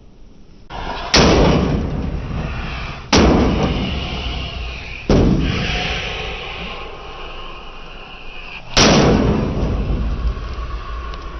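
Four loud bangs against a microwave oven as it is being destroyed, coming about two seconds apart with a longer gap before the last. Each bang dies away slowly with a ringing tail.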